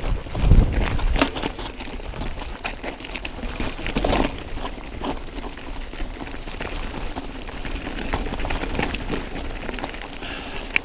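Mountain bike riding over a rough dirt and rock trail: tyres crunching and crackling on gravel with constant rattling and ticking from the bike, and a low rumble about half a second in.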